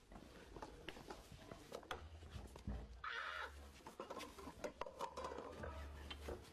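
Faint scuffling, shuffling and small knocks from a keeper and a giant panda cub tussling at a doorway, over a low hum, with one brief high squeal about three seconds in.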